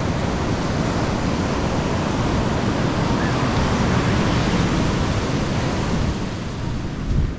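Ocean surf breaking and washing up the beach, with wind on the microphone. The sound swells through the middle, and a brief low rumble of wind comes near the end.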